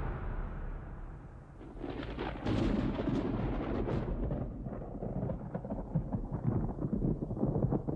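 Film soundtrack sound effects: a deep, thunder-like rumble, then from about two seconds in a dense, irregular crackle of many short cracks and pops over the rumble. There is no music.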